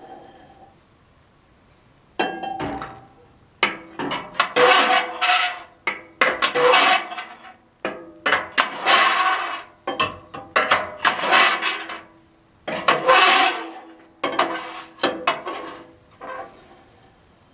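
Metal scraping and clanking in repeated strokes of about a second each, with a ringing metallic tone under them: the wood-gas generator's gas filter being scraped clean of ash and soot.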